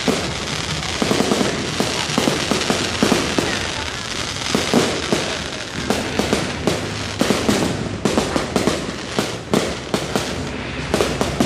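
Fireworks going off in a dense, continuous run of bangs and crackles, quickening into rapid volleys near the end.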